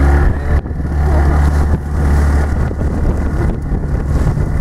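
Outboard motor of a Zodiac inflatable boat running steadily underway, a loud low hum that dips briefly about half a second in.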